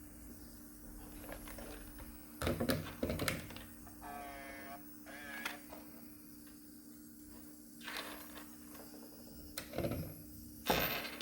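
Two electric nail drills running side by side at their lowest speed setting, a steady low two-note motor hum, with a few sharp knocks from handling.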